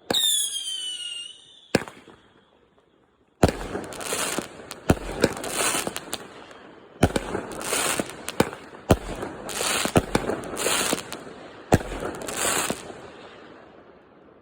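Fireworks going off. A whistling firework gives a falling whistle at the start and a single bang follows just under two seconds in. Then comes a run of about six loud bangs, each trailed by about a second of crackling, dying away near the end.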